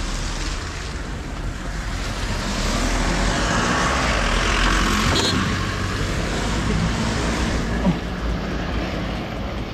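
Road vehicle noise: a steady low rumble with a rushing sound that swells toward the middle and eases off again, with a brief click about five seconds in.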